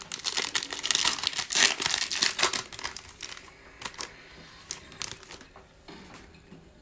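Foil wrapper of a 2020 Optic football card pack crinkling and tearing as it is ripped open, then sparser crinkles as the cards are slid out. The crinkling is densest in the first three seconds and dies away by about five seconds in.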